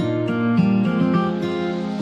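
Background music led by acoustic guitar, with plucked and strummed notes changing a few times a second.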